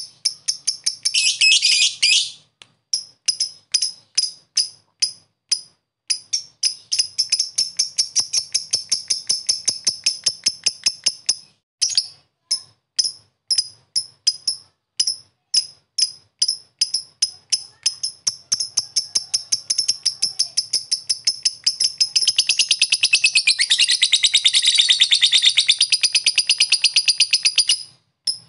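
Blue masked lovebird giving rapid, short, high ticking chirps, about three a second (the 'ngetik' call). They run together three times into continuous chattering trills: briefly about a second in, then long spells in the middle and near the end (the long 'ngekek' song).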